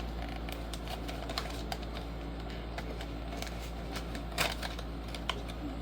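Irregular light clicks and taps of blind-box packaging being handled and opened by hand, with a louder rustle about four and a half seconds in.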